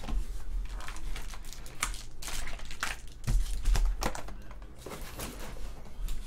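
Foil trading-card packs crinkling and rustling as they are handled, lifted out of the box and set in a stack, with a couple of dull knocks a little past halfway.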